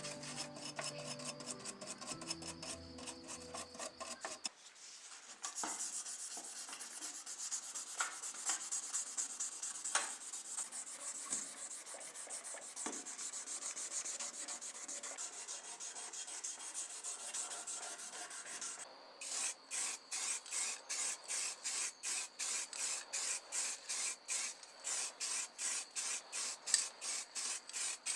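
Hand sanding or filing on a small model car body: a fast, steady rubbing hiss, then from about two-thirds of the way in, even back-and-forth strokes at about two a second.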